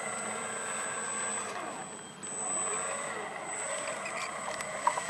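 Parkzone T-28 Trojan electric RC plane's motor and propeller whining, the pitch rising and falling several times as it flies past and changes throttle. Music with a pulsing beat starts near the end.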